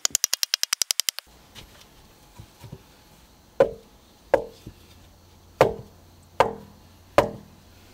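Wooden mallet knocking down on a floor of laid logs, five heavy wooden knocks a little under a second apart. Before them, a quick rattle of about a dozen sharp clicks lasting about a second.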